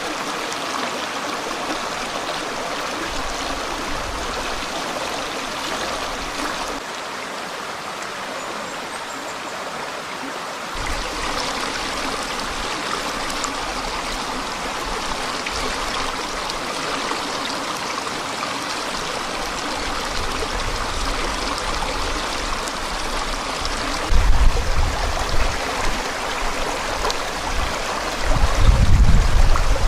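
Forest stream flowing and babbling steadily, with deep buffeting rumbles from about three-quarters of the way through, like wind on the microphone.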